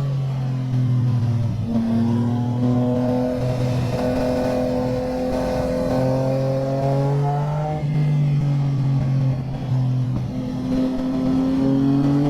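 Motorcycle engine running hard on the move, its pitch climbing through the revs and dropping sharply at gear changes, about half a second in and again about eight seconds in.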